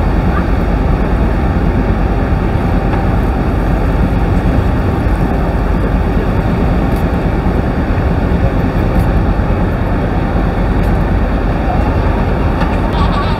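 Steady loud roar of the Rhine Falls and the churning river, heard from a tour boat close below the falls, mixed with the boat's engine noise.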